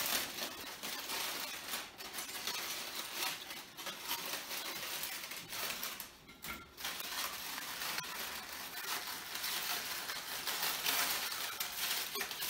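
Aluminium foil being peeled open and crumpled by hand, a steady crinkling and rustling with a brief pause about six seconds in.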